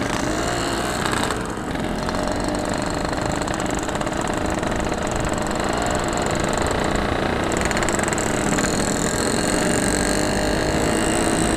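Yamaha RX-King's two-stroke single-cylinder engine running steadily under way, dipping briefly about a second and a half in.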